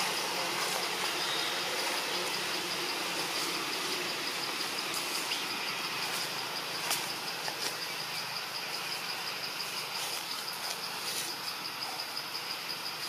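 Insects trilling steadily, a high, evenly pulsing chirr over a background hiss, with a few faint clicks scattered through.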